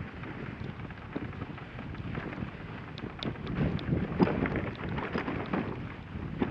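Dog sled running over snow: a steady rough rumble and hiss of the sled on the trail with wind on the microphone, scattered with small clicks and knocks, the loudest knock about four seconds in.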